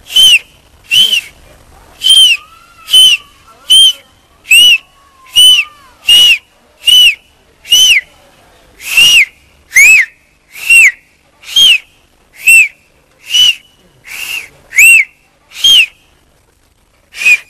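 A boy whistling with his hand at his mouth: a string of short, clear whistle notes, each rising and falling, about one a second, with a brief pause near the end.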